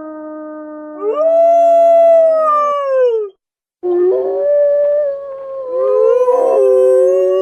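Wolves howling, two voices overlapping in long drawn-out calls. A higher howl joins about a second in and slides down to end just after three seconds; after a short break, a new howl starts with a second voice rising and falling across it near the end.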